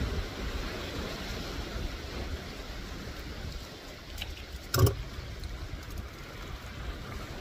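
Small waves breaking and washing over a rocky shore at low tide, with a steady low rumble. A single sharp thump just before five seconds in is the loudest sound.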